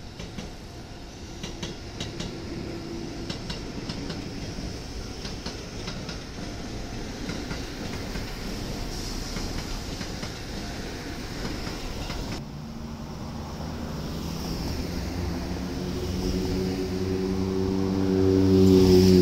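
Electric commuter train passing close by, its wheels clicking over rail joints and points. After a sudden change about twelve seconds in, a second electric train approaches with a steady low hum that grows louder toward the end.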